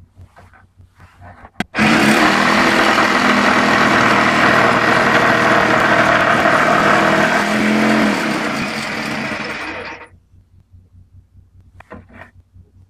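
Electric jigsaw mounted under a homemade saw table, running with its blade stroking: it starts abruptly about two seconds in and its pitch sags and fades before it stops about ten seconds in.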